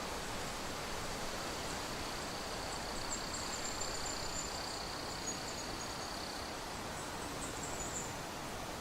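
Natural outdoor ambience: a steady hiss with a thin, high, unbroken insect drone that stops about six and a half seconds in, and a higher, broken buzzing through the middle seconds.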